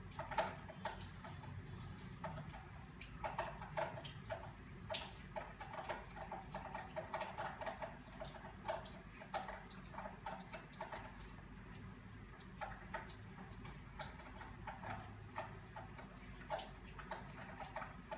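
Crochet hook clicking and tapping irregularly as stitches are worked in yarn, several small ticks a second over a faint steady hum.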